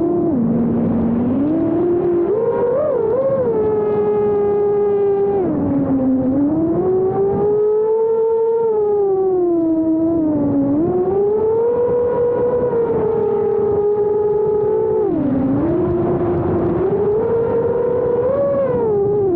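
Five-inch FPV quadcopter's brushless motors on a 6S battery, whining as the pitch rises and falls constantly with throttle, dropping sharply several times.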